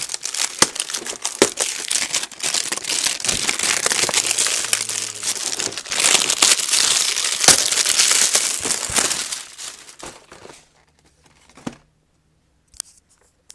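Packaging being torn and crinkled open by hand: dense crinkling and tearing with many sharp clicks for about ten seconds, then a few separate clicks near the end.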